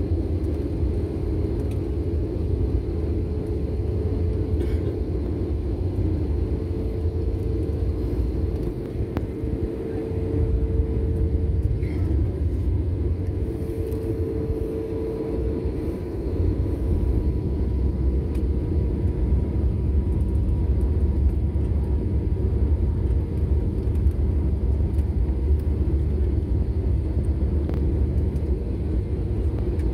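Jet airliner cabin noise: a steady low rumble of engines and airflow with a faint steady hum, heard from a window seat on descent. The rumble dips briefly about nine seconds in.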